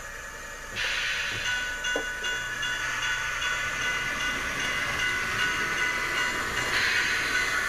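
Diesel locomotive sound effects from the DCC sound decoder in an HO-scale Athearn GP-38 model, played through its small, thin-sounding test speaker: a steady engine drone, with a hissing rush that comes in about a second in and swells again near the end.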